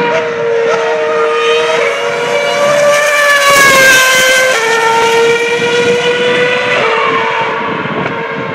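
A 2012 Formula One car's 2.4-litre V8 engine screaming at high revs as it passes on track, its pitch stepping up through the gears. It is loudest about four seconds in as it goes by, then drops in pitch and carries on at a steady high note as it pulls away.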